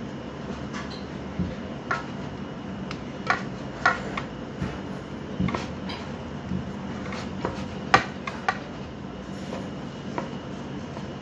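Scattered light clicks and taps of gloved hands working red velvet cake crumbs from a steel bowl onto a frosted cake on its stand, one sharper click about eight seconds in, over a steady mechanical hum.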